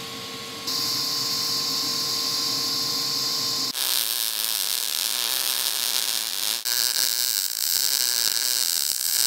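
Welding arcs from a Lincoln Power MIG 210 MP, three processes in turn with abrupt cuts between them. First a lift-arc TIG arc on stainless round stock, a steady hiss with a faint hum. Then a spattering MIG arc from about four seconds in, and a stick-welding arc for the last few seconds, both louder and rougher.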